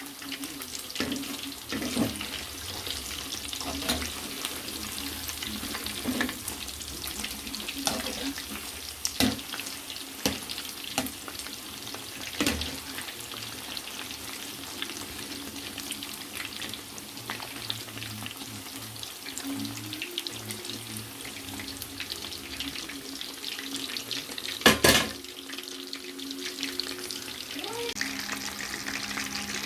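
Chicken kabab pieces deep-frying in hot oil: a steady sizzle with scattered pops and crackles. One sharp knock stands out near the end.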